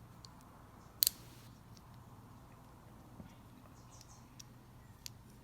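Faint clicks and taps of small nitro-engine parts (piston, wrist pin, connecting rod) being handled and fitted, with one sharper click about a second in, over a low steady hum.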